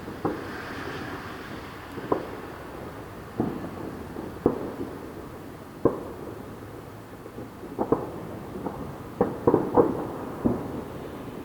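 Distant fireworks and firecrackers going off: about a dozen sharp bangs at irregular intervals, each with a short rumbling echo, several in quick succession near the end.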